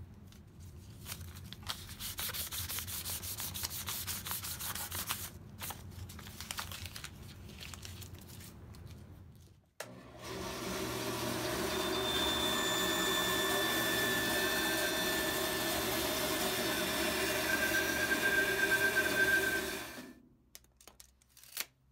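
Hands rubbing and smoothing a paper template down onto a walnut board, a dry scratchy rubbing. About ten seconds in, a bandsaw runs and cuts through the walnut board with a steady whine, then stops about two seconds before the end, leaving a few faint clicks.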